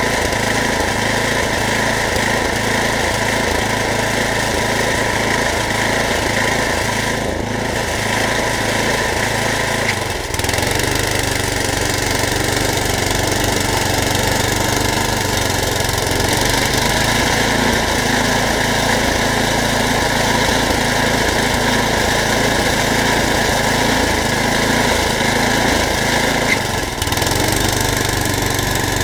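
Snowblower's small engine running steadily, its low pulsing note shifting about ten seconds in and again near the end as the load changes.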